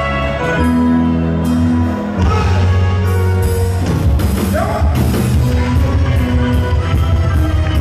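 Live band playing amplified music, with bass guitar, electric guitars, drums and congas, heard from the audience in a large hall. A singer's voice comes in briefly about halfway through.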